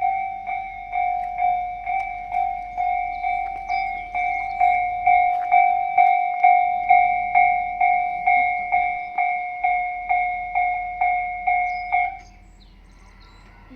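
Japanese railway level-crossing alarm ringing: a repeated electronic bell strike about twice a second, which cuts off suddenly about twelve seconds in.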